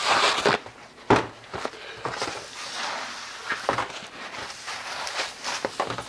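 A blue paper shop towel torn from its roll, then paper rustling and rubbing as a brake part is wiped clean, with a sharp knock about a second in and a few small clicks.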